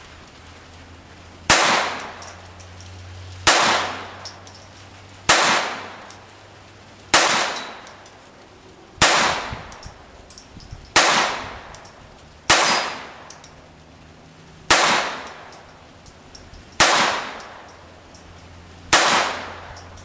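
Ruger SR22 .22 LR pistol fired ten times at a slow, even pace of about one shot every two seconds, each crack trailing off in a short echo. It cycles every round without a malfunction.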